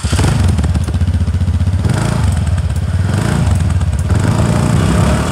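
Motorcycle engine running loud and steady with a rapid exhaust beat.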